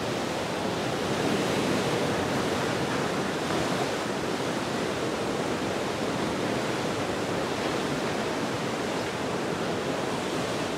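Floodwater pouring steadily through a river weir's wide-open sluice gates.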